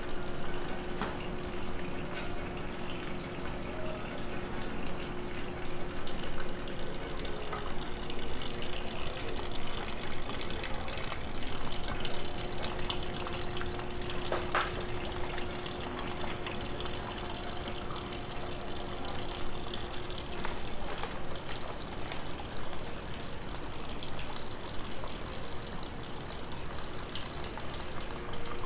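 A steady stream of water running from a bamboo spout into a stone shrine hand-washing basin (temizuya) and splashing below. A faint steady hum sits underneath.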